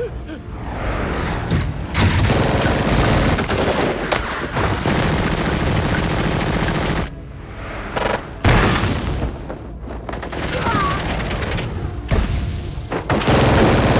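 Film sound effects of armoured drop pods plunging through the sky: a loud rushing roar with booms and crackling, cutting off and back in sharply several times.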